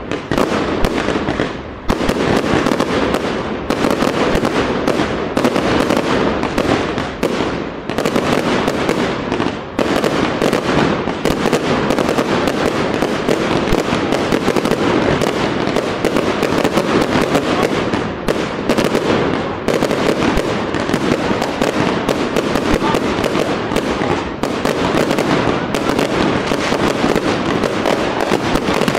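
Fireworks display: a dense, unbroken barrage of bangs and crackling from aerial bursts going off in quick succession.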